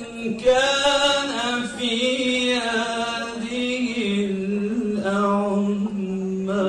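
Melodic Quran recitation: a single reciter's voice holding long drawn-out, ornamented notes, dropping to a lower pitch about four seconds in.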